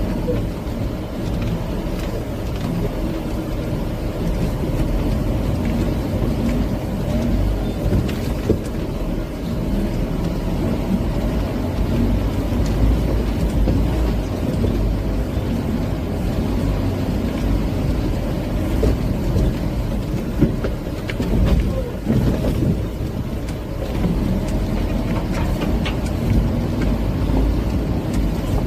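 Pickup truck engine running steadily with a low rumble on a rough dirt track, with a few short knocks.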